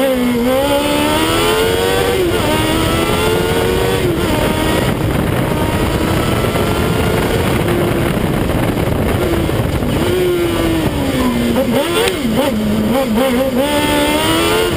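Kawasaki ZX-12R inline-four motorcycle engine in a Fiat 500 race car, revving hard under load. Its pitch climbs, drops at a gear change about two seconds in and climbs again, falls away through the middle, then rises again near the end, over steady wind and road noise.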